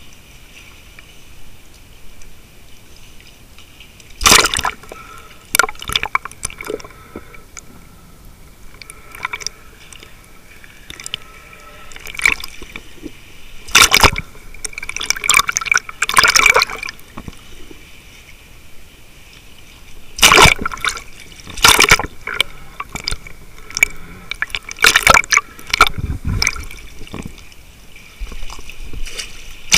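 Water sloshing and bubbling around a camera held underwater, broken by loud sudden bursts every few seconds, with a faint steady high tone underneath.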